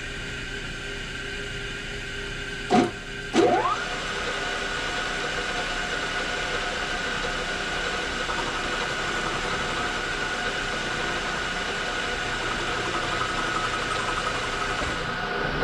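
Metalworking machine tool's motor running with a steady hum. About three seconds in there are two sharp knocks, the second followed by a quick rise in pitch, and the machine then runs on steadily.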